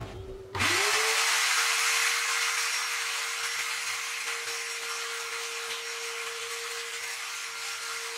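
Vacuum motor starting about half a second in, its whine rising quickly and then holding steady, with a loud rushing hiss of air as wood shavings are sucked up through a plastic pipe nozzle.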